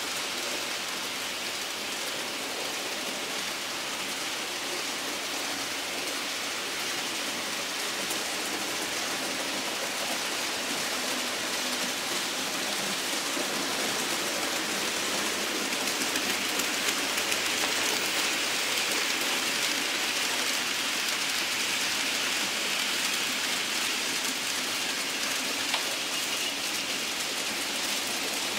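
N-scale model trains running on the layout's track: a steady hiss of small wheels rolling, with faint clicks, growing louder through the middle as a train passes close by.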